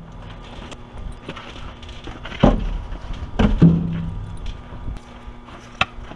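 Scrap wood boards and logs being dropped onto a stack: hard wooden knocks, one about two and a half seconds in and two close together around three and a half seconds, one with a short hollow ring, then a sharp click near the end.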